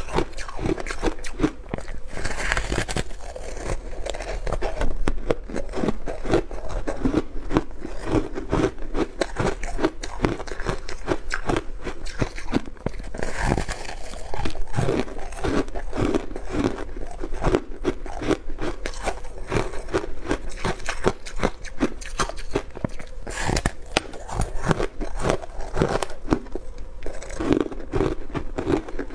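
Close-miked crunching of powdery freezer frost ice, bitten off in mouthfuls and chewed, with dense crisp crackles throughout.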